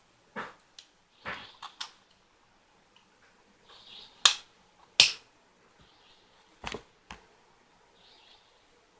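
Irregular sharp clicks and knocks of small tool pieces being handled and set down, the two loudest a little over four and five seconds in, with faint rustling between.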